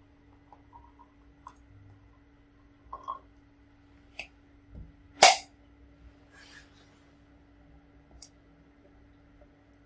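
A stainless steel teapot is set down on a small brick stove with a sharp metallic clink about five seconds in, among a few lighter clicks and knocks. A low steady hum runs underneath.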